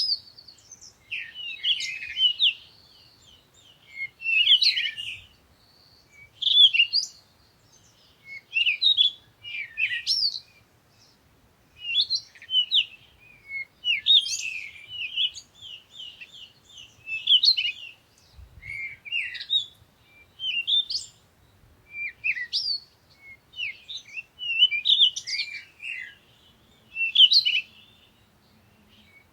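Songbirds singing: short bursts of quick, high chirps and trills, a new phrase every second or two with brief pauses between.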